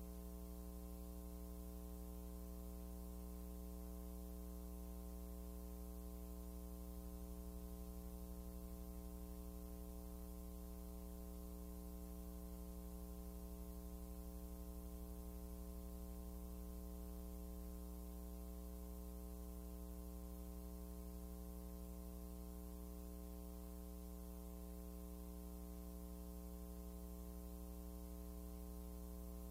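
Steady electrical mains hum with a stack of buzzing overtones over faint hiss, unchanging, with no other sound.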